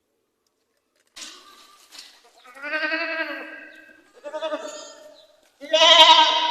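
Goat bleating and screaming. After about a second of silence comes a breathy cry, then three wavering, human-sounding bleats, the last one the loudest.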